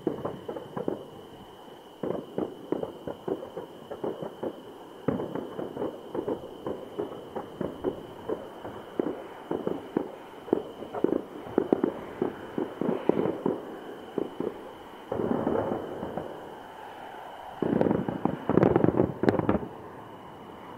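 Fireworks display: a rapid, irregular string of bangs and crackling pops from bursting shells. The crackling turns denser and loudest in two stretches toward the end.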